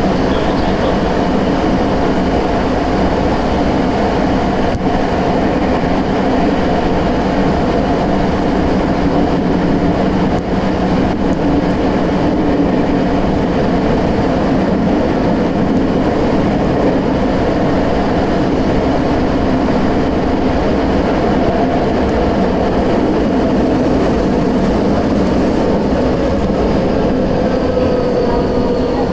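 Tokyo Metro 8000 series subway train running at speed through a tunnel, heard from inside the car: a loud, steady rumble of wheels and running gear. Near the end a whine falls in pitch as the train begins to slow.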